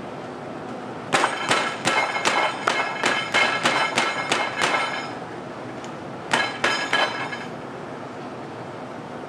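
A rapid series of sharp metallic strikes that ring, about three a second, for roughly four seconds, then a shorter run of three or four strikes a little later.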